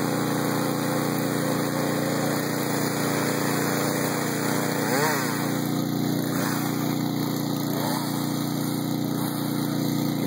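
Small two-stroke chainsaw engine idling steadily, with a few brief pitch rises and falls near the middle.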